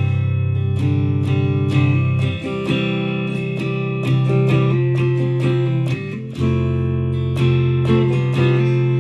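Guitar music: strummed and picked guitar chords over sustained low bass notes.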